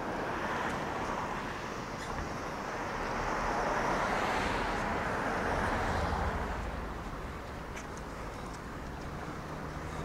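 Street traffic noise: the hum of a vehicle going by swells about three seconds in and fades away by about seven seconds, over a steady low rumble.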